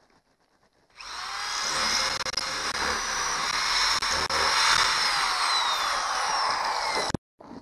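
DeWalt power drill running, drilling into the boat's bow deck. It starts about a second in, runs steadily for about six seconds with its whine dropping slightly in pitch in the second half, and cuts off abruptly.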